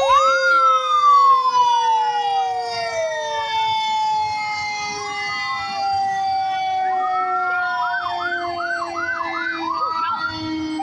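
Sirens of passing fire engines sounding together. One long tone falls slowly in pitch throughout, while another wails up and slowly back down. Near the end a fast yelp of quick up-down sweeps, about two a second, comes in before a new wail starts to rise.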